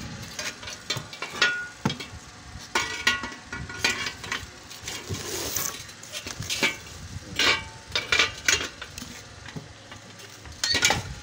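Irregular metallic clinks, knocks and scraping from hands working on a steel angle-iron frame, a few of the knocks ringing briefly.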